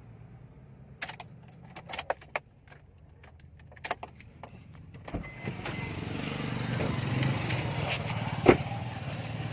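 Several sharp metallic clicks and clinks, then from about five seconds in a vehicle engine running steadily, building and easing, with one loud click near the end.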